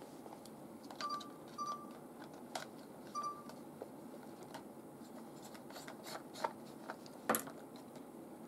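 Handling a camcorder fitted with a furry-windscreen microphone: three short electronic beeps in the first few seconds, then scattered plastic clicks and knocks from the camera body, the loudest a sharp click near the end.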